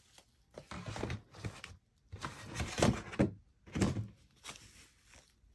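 A cloth dust bag being handled and opened, giving several short rustling bursts with a few dull thumps as the bag inside shifts; the loudest come about three and four seconds in.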